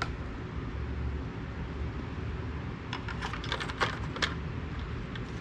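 A quick run of small plastic clicks and rattles about three to four seconds in, as the yellow dipstick cap is pushed and twisted into the oil fill tube of a Briggs & Stratton Intek engine. A steady low hum runs underneath.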